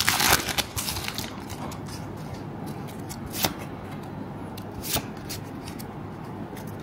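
Foil booster-pack wrapper crinkling as it is torn open, then the stack of Pokémon trading cards handled, with two light clicks of the cards later on.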